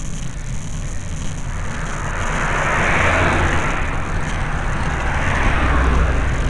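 A car passing close by on the road, its tyre and engine noise swelling from about a second and a half in, peaking around halfway and again near the end, over a steady low rumble of wind on the microphone.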